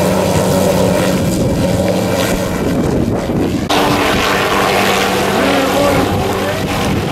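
Helicopter flying, its engine and rotor running steadily, with wind buffeting the microphone. The sound changes abruptly a little after halfway through.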